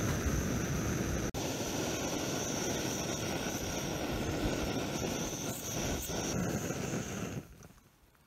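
Backpacking gas canister stove burning at full flame under a mug of water: a steady roar with a high hiss, broken for a moment about a second in. About seven seconds in the stove is shut off and the roar stops suddenly.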